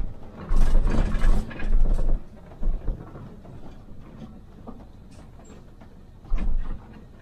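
Rattling and knocking inside a moving MAN Lion's City hybrid city bus, with heavy low thumps in a cluster from about half a second to two seconds in and again about six seconds in, and a quieter steady rumble between them.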